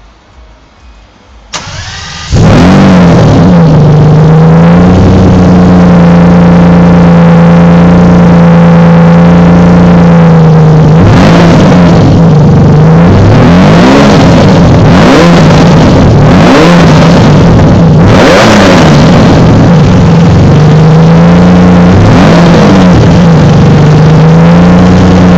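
1997 Lamborghini Diablo Roadster's V12 with a full QuickSilver exhaust being started. The starter cranks briefly and the engine catches about two seconds in, then idles loudly. From about ten seconds in there is a run of short throttle blips, the revs rising and falling. The sound is distorted by the phone microphone overloading.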